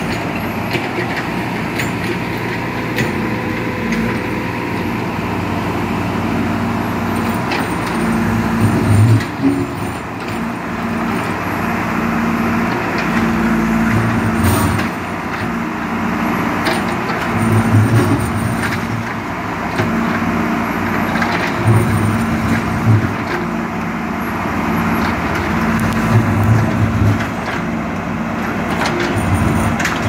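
JCB 3DX backhoe loader's Kirloskar diesel engine running steadily while the machine works earth, its low note swelling under load every few seconds.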